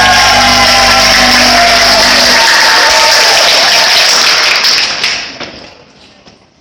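The last of the dance music fades out about two seconds in under a crowd clapping and cheering, and the applause dies away over the final second or two.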